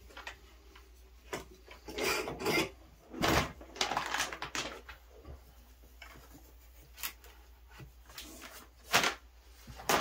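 Tape being pulled off the roll in a few short noisy pulls and pressed around the metal rim of a portable propane forge's steel shell, with scattered light clicks and knocks as the forge is handled.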